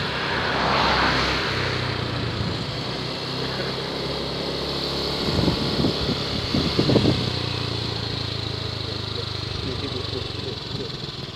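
A small engine running steadily, with a few louder rustles about five to seven seconds in.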